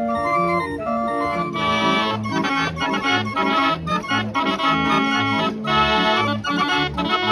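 Barrel organ (street organ) playing a tune, its pipe notes sounding over a bass line. About a second and a half in, a regular oom-pah bass with short, clipped chords comes in.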